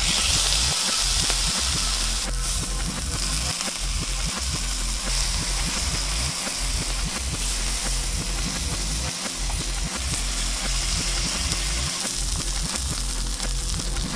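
Steak sizzling in hot oil in a cast-iron skillet, starting suddenly as the meat is laid in the pan and then holding as a steady dense hiss.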